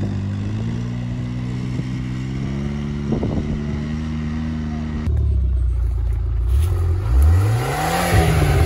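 ATV engine running steadily as the quad pulls away down a dirt track. About five seconds in, a car engine idles and then revs up and back down once.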